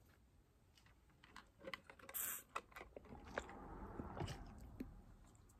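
Quiet pause filled with faint mouth clicks and lip smacks, scattered from about a second in, followed by a soft rustle in the second half.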